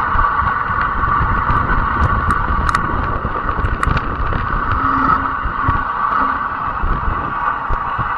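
Fat-tyre electric bike under way: a steady high hum from the motor and tyres over a low rumble of wind on the microphone, with a few faint ticks.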